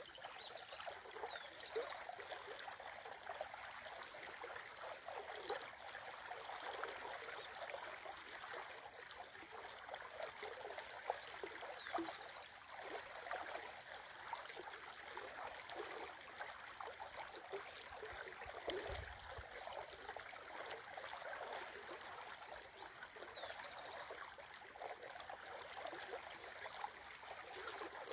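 Shallow river flowing over a riffle, a steady babbling of moving water. A bird gives a short, high call three times, about ten seconds apart.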